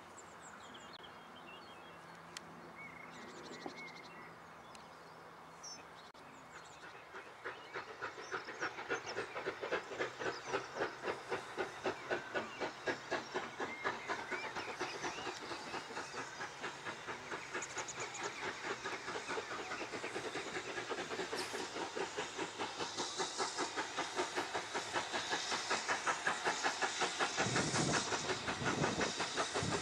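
Two steam locomotives double-heading a train, working hard with a fast, even beat of exhaust chuffs. The beat starts faint a few seconds in and grows steadily louder as the train approaches.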